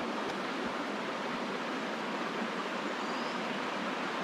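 Mountain stream rushing over boulders, a steady even rush of water.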